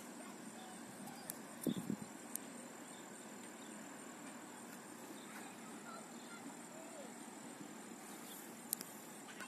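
Quiet pond-side outdoor ambience with a steady, high-pitched insect trill. A brief, louder, lower sound comes about two seconds in.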